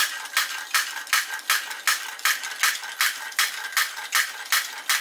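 Wilesco toy drop hammer driven by a belt from a small Stirling engine, its hammer head dropping onto the anvil in a steady run of light metallic clinks, about three a second. The hammer is running steadily now that the slipping drive has been squeezed tight with pliers.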